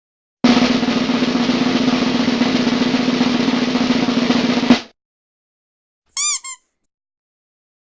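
Snare drum roll lasting about four seconds, ending in a single sharp hit. Two short high-pitched chirps follow after a pause.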